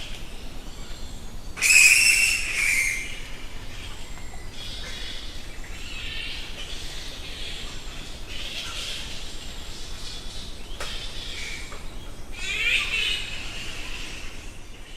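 Bats squeaking and chittering: a string of short, high-pitched calls over a steady hiss, with a louder call about two seconds in and a quick run of chirps near the end.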